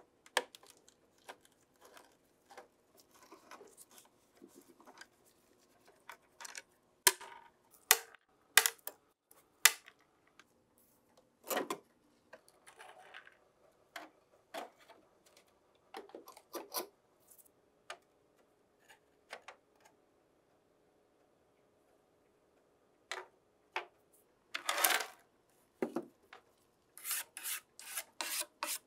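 Scattered knocks, clicks and short scrapes from a 1959 Philips Futurit radio's cabinet and its cloth-covered grille frame being handled and pulled apart. A longer scrape comes about 25 seconds in, then from about 27 seconds quick repeated strokes of a brush sweeping dust out of the cabinet.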